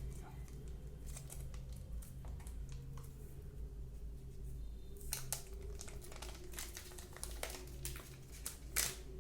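Plastic wrapping being crinkled and peeled off a new smartphone, in scattered short rustles and small clicks that come thicker in the second half.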